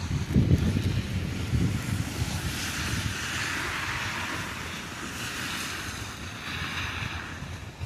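Wind buffeting the microphone outdoors in a snowstorm, in low rumbling gusts strongest over the first two seconds. A steady hiss swells and fades in the middle.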